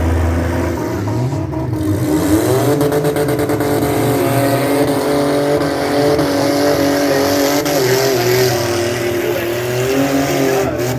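Demolition derby car engines revving hard, the pitch climbing about two seconds in and staying high.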